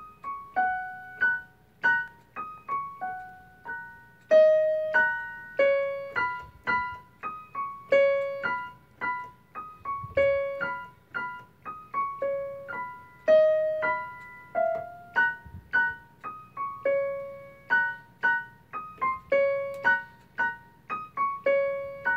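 Digital piano played one note at a time, a simple melody picked out slowly at about two notes a second, each note struck and left to fade.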